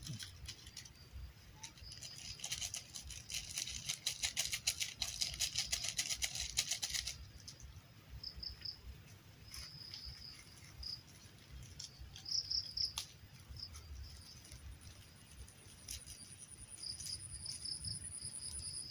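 Insects calling: a rapid, pulsing high buzz starts about two seconds in and stops some five seconds later, then short high chirps come in small clusters, with a thin, steady high whine near the end.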